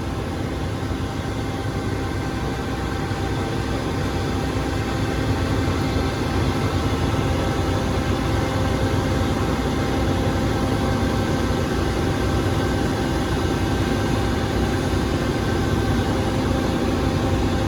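Heavy engine running steadily under load, with a low rumble and steady hum tones, growing a little louder over the first few seconds and then holding.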